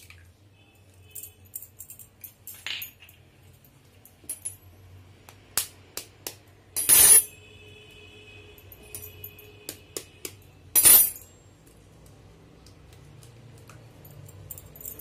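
Two eggs cracked open one at a time against a white ceramic bowl, with light clicks and clinks of shell and bowl throughout. Two sharp, loud cracks come about seven and eleven seconds in; the first leaves a faint ringing for a few seconds.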